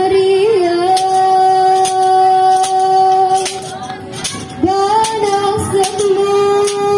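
A woman singing a slow chant in long held notes, stepping in pitch now and then. Sharp snaps cut through it at a steady pace, a little more than one a second.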